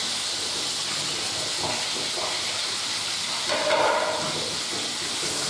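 Diced chicken and carrots sizzling in hot oil in a frying pan, a steady hiss, with brief clattering about halfway through as the carrots go in.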